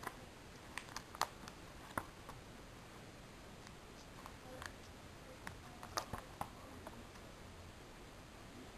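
Plastic binder sleeve pages holding trading cards being handled and turned: scattered sharp clicks and crackles, clustered about a second in and again around six seconds in, over a faint steady hiss.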